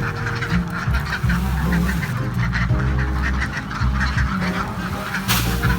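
A flock of domestic ducks quacking and chattering together as they feed on paddy rice in their pen.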